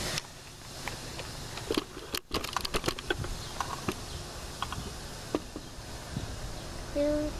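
Freight train gondola cars rolling past, their steel wheels clicking and clattering irregularly over the rails above a low rumble. A short tone sounds near the end.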